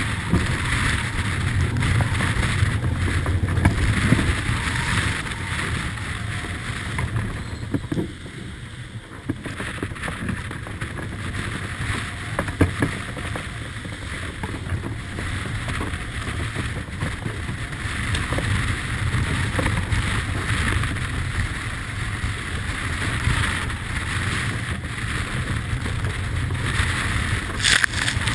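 Wind buffeting the microphone and sea rushing along the hull of a Beneteau 40.7 sailing yacht beating into heavy weather. A sharp burst of spray comes near the end.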